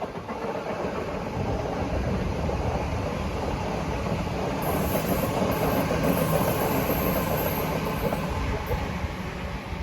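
Sydney electric suburban train passing close by, a steady rumble of wheels on rail that builds over the first couple of seconds and stays loud. A high hiss joins it from about halfway through.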